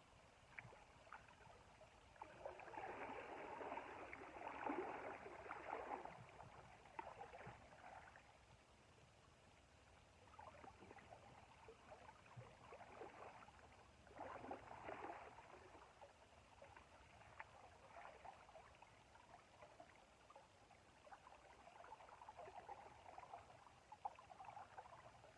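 Faint splashing and gurgling of river water, coming in a few short spells.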